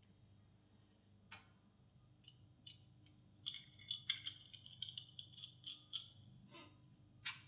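Faint clicks and clinks of small metal spray gun parts being handled and fitted together by hand: a cluster of light taps with a brief metallic ring from about three and a half to six seconds in, and a single click near the end.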